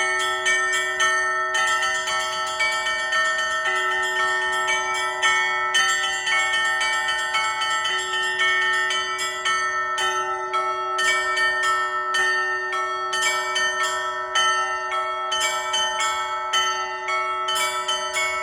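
Orthodox church bells ringing in a festive peal. A deeper bell is struck about every two seconds under a quick, rhythmic pattern of small high bells, and the tones ring on and overlap.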